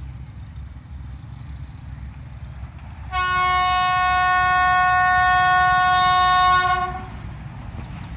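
Diesel locomotive's horn sounding one long steady blast of about four seconds, over the low rumble of the approaching train.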